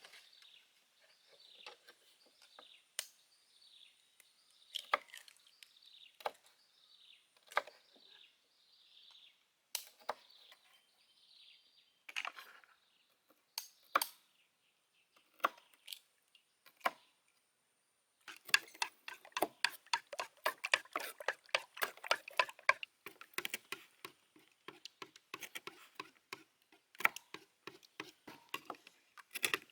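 A knife striking a wooden cutting board: single cuts every second or two, then about 18 seconds in, fast, steady chopping. A bird chirps repeatedly in the background during the first part.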